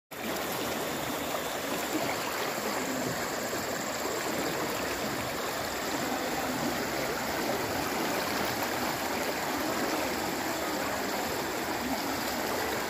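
Muddy floodwater rushing across a dirt road: a steady, even rush of flowing water.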